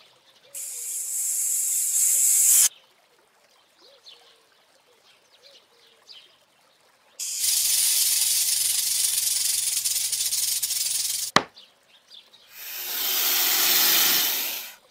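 Rattlesnake rattling: a dry, buzzing hiss in three bursts of two to four seconds each, the last one swelling up and fading away. There is a sharp click a little after the middle.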